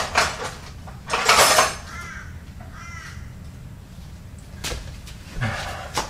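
Clatter and knocks of metal hand tools being picked up and handled, the loudest a little over a second in and more near the end. Two faint short calls sound in between, about a second apart.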